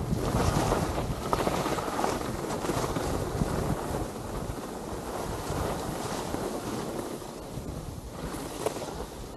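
Wind rushing over an action camera's microphone mixed with the scraping hiss of sliding on groomed snow, growing quieter as the descent slows.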